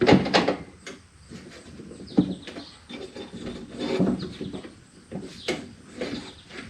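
Knocks, clunks and scraping of a power window regulator assembly being maneuvered inside a pickup truck's door shell, with a few sharp knocks and a short high squeaky scrape in between.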